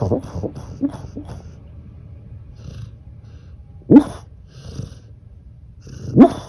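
Sleeping pet snoring: a run of short snores fading over the first second, quieter breathing, then two sharp, loud snorts about four and about six seconds in.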